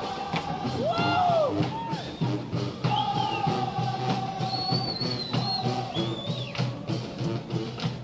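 Marching band playing live: a fast, steady drum cadence with a long held note over it in the middle, and a few short whoops and a whistle from the crowd.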